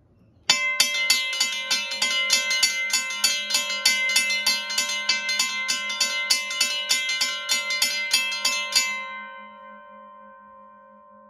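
Two mechanical railway crossing bells, a Western Cullen Hayes and a Safetran, ringing together on battery power with rapid, evenly spaced hammer strikes on their gongs. The striking stops suddenly about nine seconds in, and the gongs ring on, fading away.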